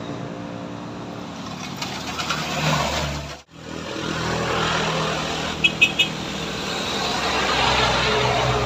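Motor scooter engines labouring up a steep hill. The sound breaks off suddenly, then builds again as several scooters come closer; about two seconds after the break there are three quick high beeps.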